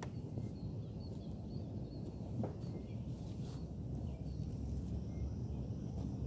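Wind rumbling and buffeting on the microphone, with faint high bird chirps now and then and a single click about two and a half seconds in.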